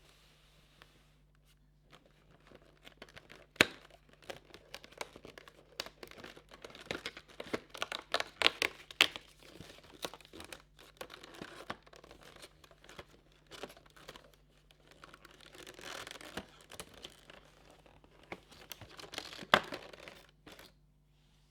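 An advent calendar compartment and its item's wrapping being opened by hand: crinkling and tearing, broken by many small clicks, with two sharp, louder clicks, one about three and a half seconds in and one near the end.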